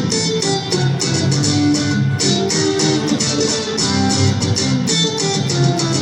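Live band playing a song's instrumental intro, led by guitar, with a steady rhythm.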